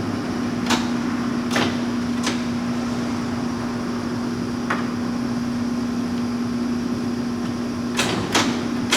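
LeBlond Regal engine lathe running with its spindle turning at its slow 27 RPM setting: a steady motor hum with a few sharp, irregular clicks or knocks.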